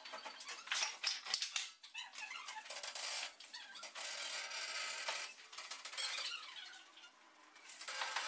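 Squeaking and scraping from a pallet truck and a dolly, loaded well beyond their capacity, as a heavy CNC router is rolled by hand over an uneven floor. A couple of knocks come about a second and a half in.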